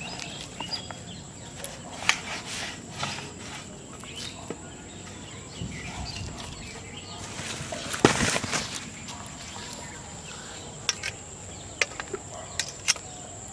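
Hand kneading and squeezing wet flour fish-bait dough against a steel plate: scattered soft squelches and scrapes, with a louder scrape about two-thirds of the way through. A steady thin high-pitched drone, typical of insects, runs behind it.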